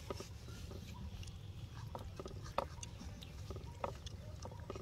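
Macaques handling food on a plastic tray: scattered light clicks and taps with a few short squeaks, over a low steady rumble.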